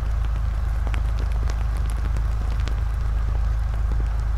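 A heavy diesel engine idling with a steady low rumble, with scattered sharp ticks and crackles over it.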